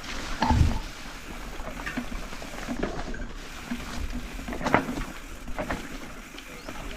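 Mountain bike tyres rolling over a rocky dirt trail, with scattered knocks and rattles from the bike and a sharper knock about two-thirds of the way through.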